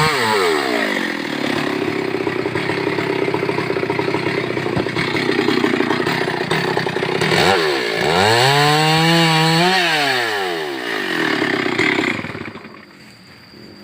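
Stihl MS 382 two-stroke chainsaw cutting wood, its engine note dropping under load, revving up and down freely partway through, then cutting again. The sound dies down about twelve seconds in.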